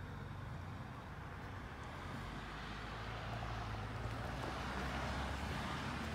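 A vehicle engine running with a steady low hum, and a rushing noise that grows louder over the second half.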